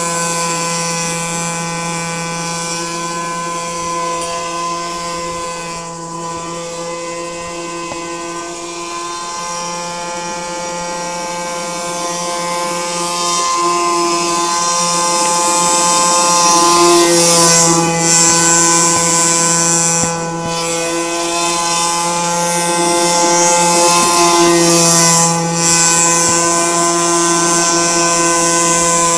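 Motor and air propeller of a Dumas radio-controlled airboat running at speed, a steady pitched drone. It gets louder about halfway through and dips briefly twice near the end.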